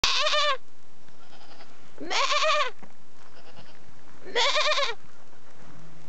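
A goat bleating three times, each call about half a second long and about two seconds apart, a wavering note that rises and then falls.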